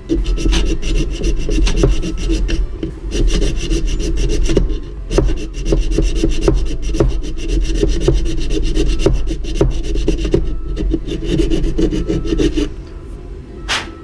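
Small hand file rasping back and forth on a toy skid steer's hard plastic frame, rapid strokes in several runs, filing down a spot where the loader's lift arm catches. The filing stops about a second before the end, followed by a single sharp knock.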